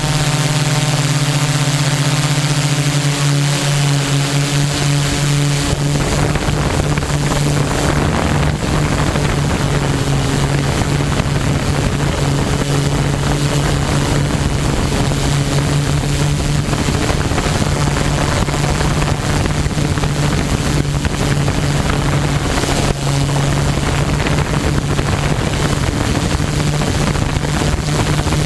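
An HMF U580 quadcopter's Gartt 3508 brushless motors and propellers hum steadily, as heard through its onboard camera. A loud rushing noise joins about six seconds in and covers the higher overtones of the hum.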